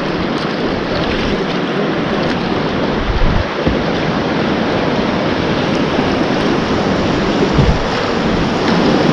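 Whitewater river rapids rushing around a kayak, with wind on the microphone and a couple of brief low thumps. The rush grows louder toward the end as the boat runs into breaking waves.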